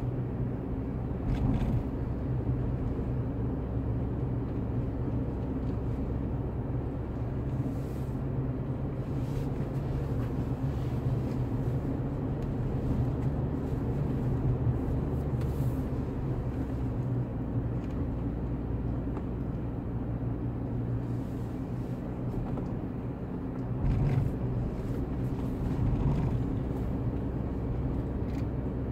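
Car cabin noise while driving: a steady low engine hum and tyre rumble, with a few light bumps near the end.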